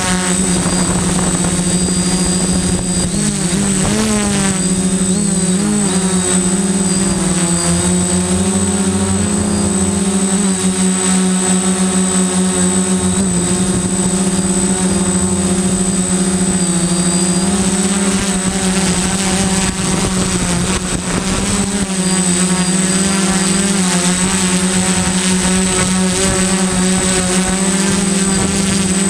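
Electric motors and propellers of a small multirotor drone running with a steady, loud whine, heard close up from the GoPro Hero 3 mounted on the craft. The pitch wavers a few seconds in and again about two-thirds of the way through as the throttle changes while it hovers low.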